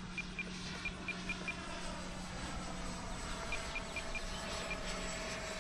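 Distant whine of a Freewing Intruder RC jet's AvantiS v2 electric ducted fan flying past, slowly falling in pitch. Crickets chirp in short groups of pulses.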